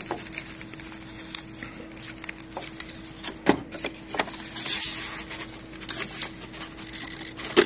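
Scattered clicks and knocks of hands handling a paper roll and the plastic cover of a Bixolon SRP-275II receipt printer during a paper change, over a steady low hum.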